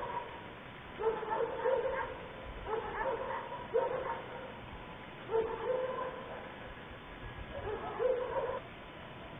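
A dog barking and yipping in about five short bouts, one to two seconds apart, over a faint steady high tone.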